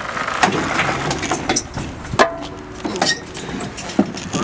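Knocks, clunks and rattles of a 2017 Kawasaki KX450 dirt bike, engine off, being pushed and lifted into a pickup truck's bed, with several sharp clunks along the way.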